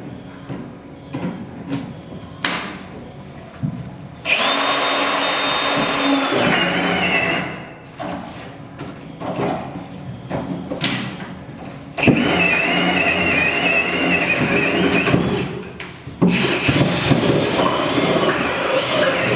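Power drill boring a hole for a gas line riser. It runs under load in three long runs, about four seconds in, about twelve seconds in and again about sixteen seconds in, with a whining motor pitch. Between the runs there are knocks and clatter.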